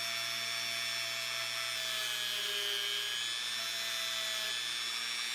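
Dremel rotary tool running at high speed, polishing a 14k gold ring band with a wire brush wheel: a steady high whine whose pitch dips slightly about two to three seconds in.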